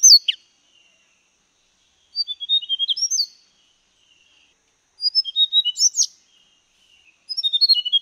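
Tickell's blue flycatcher singing: it repeats a short phrase of quick, high notes about every two and a half seconds, and each phrase ends on a higher note.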